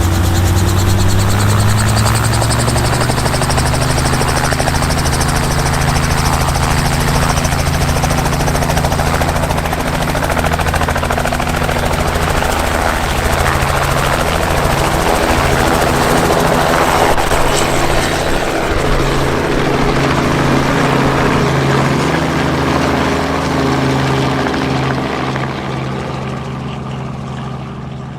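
Robinson R44 helicopter running, its six-cylinder piston engine and rotors making a steady drone. The pitch rises slightly at the start, and the sound fades near the end as the high end drops away.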